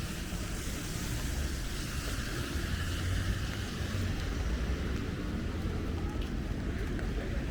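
A motor vehicle passing on a wet street: tyre hiss on the wet road over a low engine rumble that swells and eases over a few seconds.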